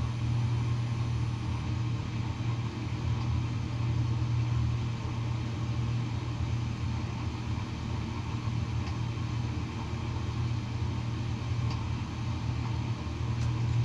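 Diesel heater running with a steady low hum.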